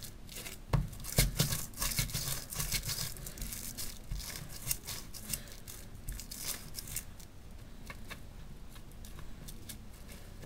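Plastic cling film crinkling and rustling under hands rolling a log of dough on a wrapped cutting board. Dense crackles that thin out after about seven seconds.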